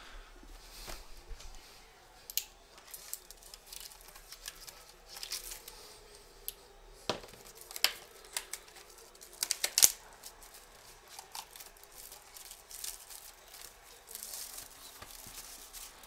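A sealed box of trading cards being unwrapped and opened by hand: plastic wrap torn and crinkled, with irregular sharp crackles and snaps from the wrapper and cardboard, loudest about ten seconds in.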